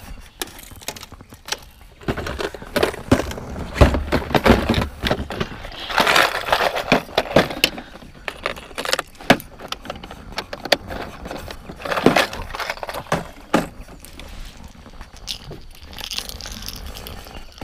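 Hands handling fishing tackle: a plastic lure box being opened and sorted, with lures and hardware clicking and clattering against plastic in clusters of sharp knocks and rustles.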